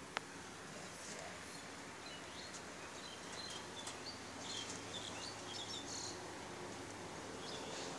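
A single sharp click just after the start from the homemade lighter gun's piezo igniter being pressed. Faint bird chirps follow in the background for a few seconds around the middle.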